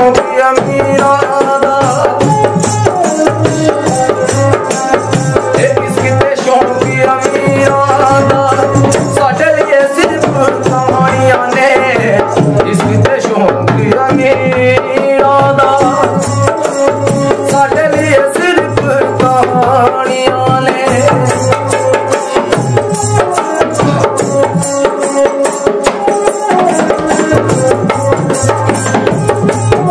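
Indian folk instrumental music: an upright bowed fiddle, its bow hung with small bells, plays a sustained melody over a steady hand-drummed barrel drum beat.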